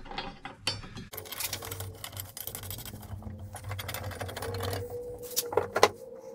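Rapid, steady metallic clicking as bolts and nuts are worked by hand on a steel lawn mower jack, followed by a few sharp metal knocks near the end.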